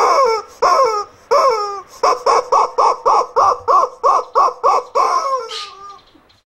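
Rubber chicken squeeze toy squawked over and over. Each squawk falls in pitch. It starts with slower squawks, then speeds up to about four a second, and trails off near the end.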